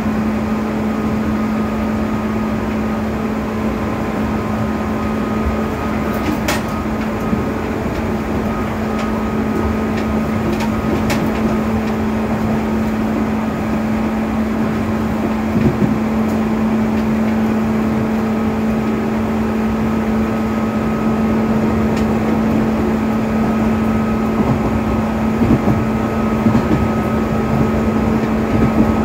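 Cabin running sound of a JR East 205 series 600 electric multiple unit cruising: steady rumble of the wheels on the rails under a constant low hum, with a few faint clicks about six and eleven seconds in.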